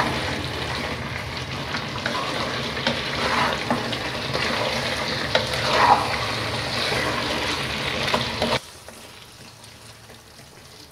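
Chicken and spice masala sizzling in a non-stick pan while a spoon stirs and scrapes through it. The sizzle stops abruptly about eight and a half seconds in, leaving a faint hush.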